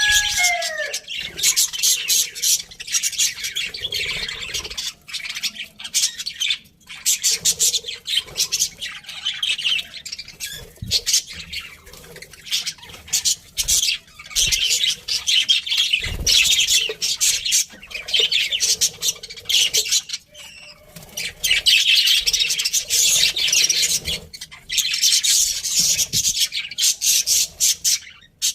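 A flock of budgerigars chattering continuously, a dense stream of rapid, scratchy chirps and squawks with only brief pauses.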